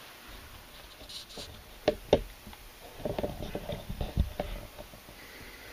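Handling noise: two sharp clicks about two seconds in, then a run of light knocks and rustles.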